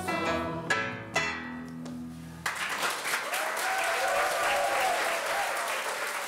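A small live band of keyboard and double bass finishes a song with a few struck chords and a held final chord. About two and a half seconds in, the audience breaks into applause.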